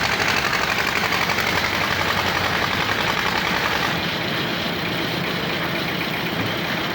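Engine of a concrete mixer and lift machine running steadily with a fast throbbing rattle. About four seconds in, the sound eases slightly and loses some of its higher clatter.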